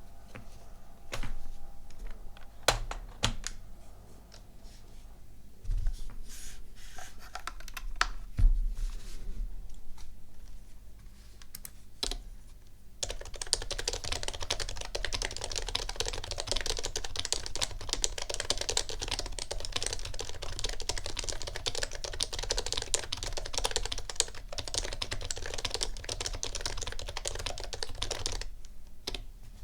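Topre keyboard keys being struck: first scattered, hard individual key smashes on a stock 2005 HHKB Pro 1 with a few heavy thumps. About halfway through comes dense, continuous fast typing on a custom Topre board (Sho Snipe) with a brass plate, #5 silencing rings and ultra-light domes.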